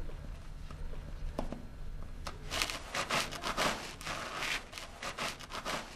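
A run of rapid, irregular scraping and rustling noises, starting about two seconds in and lasting about three seconds, over a low steady hum.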